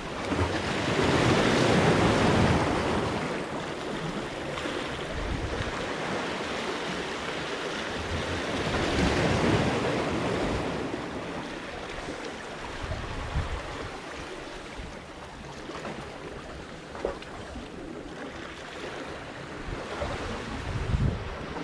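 Sea surf washing against shoreline rocks, swelling loudest about one to three seconds in and again around nine seconds, with wind buffeting the microphone.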